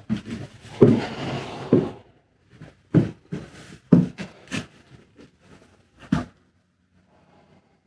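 Footsteps crunching and scuffing over a floor strewn with fallen plaster and debris. A rough scraping stretch comes first, then a run of separate heavy steps about a third to half a second apart, which stop about six seconds in.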